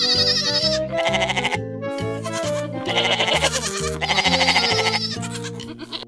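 Goats bleating several times with a quavering call, over a background music track with a steady beat.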